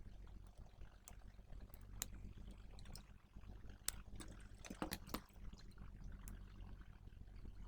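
Faint clicks and scrapes of tools against a power-supply circuit board as a switching IC is desoldered and pulled out, with a cluster of clicks about five seconds in, over a low steady hum.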